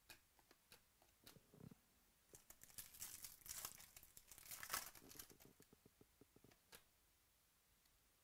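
Foil wrapper of a Bowman Chrome baseball card pack being torn open and crinkled, loudest about halfway through. Light clicks and taps of cards being handled come before and after.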